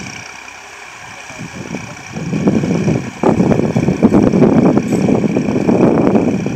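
Massey Ferguson 9500 tractor's diesel engine running under load, pulling a two-bottom mouldboard plough through dry soil. It is weaker at first, then grows loud from about two seconds in as the tractor comes close.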